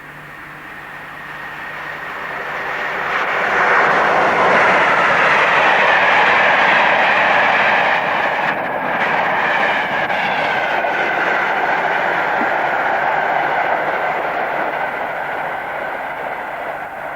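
Electric locomotive-hauled train passing at speed on the main line: it builds up over about four seconds, stays loud for around ten seconds as the train goes by, then fades away.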